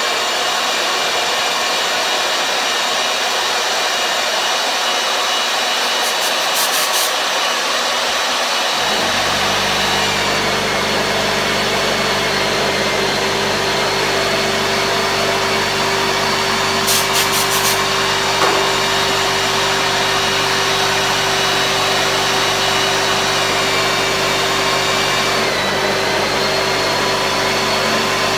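Magnetic drill press motor running steadily with a high whine while drilling into a steel beam. About nine seconds in a lower hum joins, and twice the motor's pitch dips briefly as the cutter takes load.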